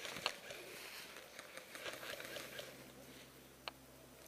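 Faint rustling and crackling of dry leaf litter and kit as a player moves along a wooded bank, with two sharp clicks, one near the start and one near the end.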